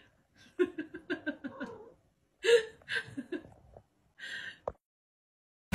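A person laughing in quick runs of short bursts, with breathy gasps between them.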